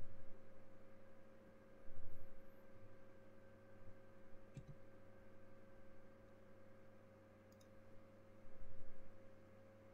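Steady electrical hum with a faint constant tone, typical of a computer recording setup. Two faint sharp mouse clicks come midway and about three seconds later. Dull low thumps come about two seconds in and again near the end.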